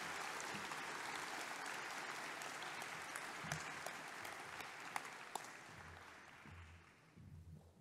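Audience applauding, a steady clapping that dies away near the end, with a few sharper single claps standing out in the middle.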